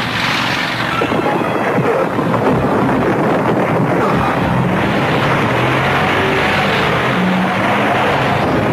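Cartoon earthquake sound effect: a loud, steady rumble of shaking and crumbling stone.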